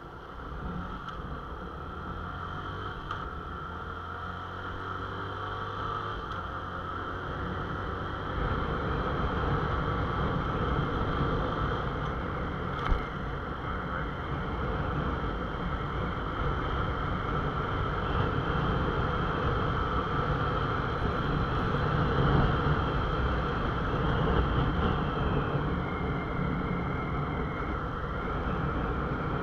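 Honda motorcycle engine pulling away and riding along, the engine and wind noise growing louder as it gathers speed. One sharp knock is heard about halfway through.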